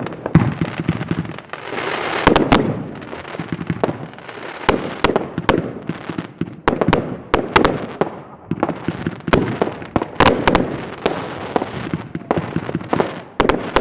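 New Year's Eve fireworks: a steady barrage of rocket and firecracker bangs with crackling. The sharp reports come at uneven intervals, often several a second, over a constant rumble.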